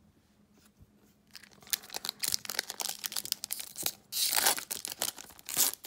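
Trading card pack wrappers crinkling as they are handled, starting about a second in, with a louder tearing-like rustle about four seconds in and a shorter one near the end.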